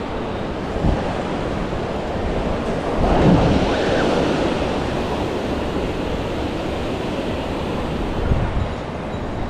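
Surf washing onto a beach, a steady rush of waves that swells loudest about three seconds in, with wind thumping on the microphone a couple of times.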